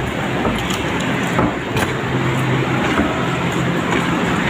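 Steady hum and rushing noise of a Lane Xang electric passenger train standing at the platform, with a few short clicks and taps.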